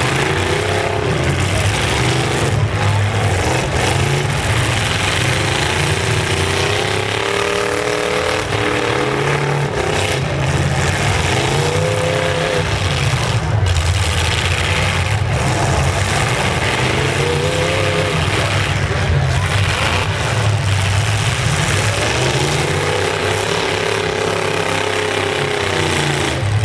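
Full-size pickup truck engines revving up and falling back repeatedly, over the steady running of other engines.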